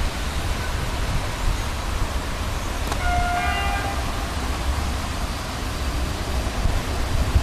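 Electric locomotive approaching with a steady low rumble. About three seconds in it gives a short two-note horn blast lasting under a second.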